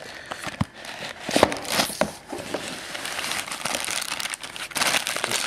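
Clear plastic bag wrapped around a rifle scope crinkling as it is handled: a continuous rustle with sharper crackles, loudest about a second and a half in.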